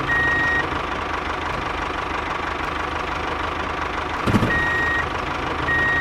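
Vehicle engine running steadily, with a short high reversing-alarm beep three times: near the start, about four and a half seconds in, and near the end. A brief knock about four seconds in.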